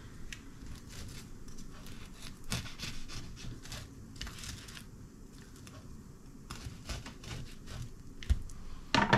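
Kitchen knife cutting open an air-fried jacket potato held in kitchen tongs on a wooden chopping board: a run of faint scrapes and small clicks, with a louder knock near the end.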